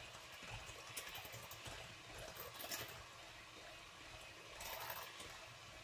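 Electric hand mixer beating egg and flour batter in a glass bowl, the noise swelling in irregular bursts every second or two.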